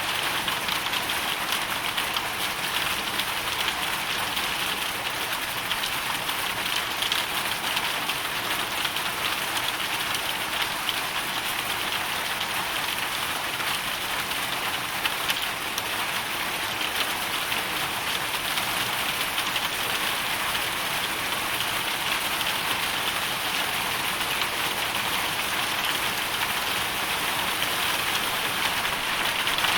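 Hailstorm: hail and rain falling in a steady, dense patter that does not let up.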